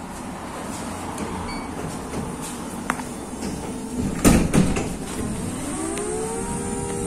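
City bus doors shutting with a loud clatter about four seconds in, over the steady rumble of the idling bus. Near the end the engine rises in pitch as the bus pulls away.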